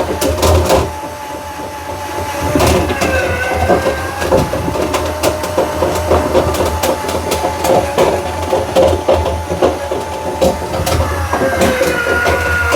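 Power drill spinning a dryer-vent cleaning brush on its rods inside the duct: a steady motor whine with constant rattling and knocking as the rods turn against the duct, its pitch shifting briefly a few seconds in and again near the end.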